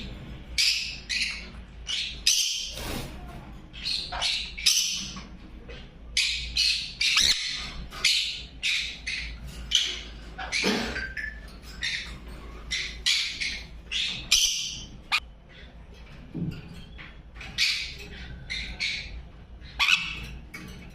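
Parrot squawking in a rapid series of short, high calls, with a brief lull a little past the middle.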